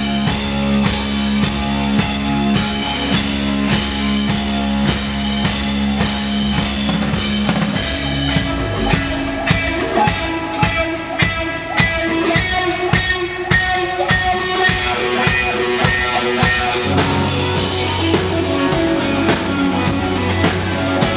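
Rock music with drum kit, electric guitar and bass on a steady beat. The low bass part drops away about eight seconds in, leaving drums and guitar, and comes back in near seventeen seconds.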